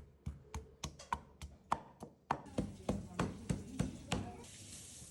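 Knife chopping on a cutting board in quick, even strokes, about three a second, stopping a little after four seconds in. A steady hiss grows beneath the strokes in the second half.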